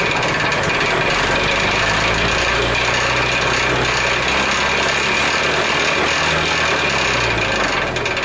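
Farm machinery running: a dense, steady mechanical clatter and rattle with a low hum underneath that falls in pitch and fades near the end.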